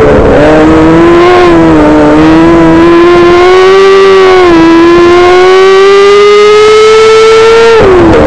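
Micro sprint car's engine at high revs heard from the cockpit, loud and distorted. The pitch climbs steadily as the throttle is held, dips briefly a few times, and drops sharply near the end as the throttle is lifted.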